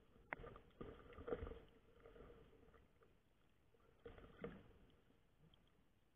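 Faint, muffled knocks and water movement heard through an underwater camera's housing while submerged: a few soft bumps in the first second and a half, and another pair about four seconds in.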